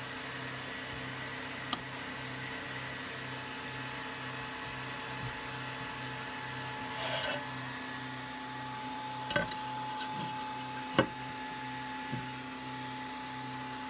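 Steady hum of an Anet A8 3D printer's fans, with a low tone pulsing about twice a second. A few sharp clicks and a short rustle come from the glass bed plate being handled for removal.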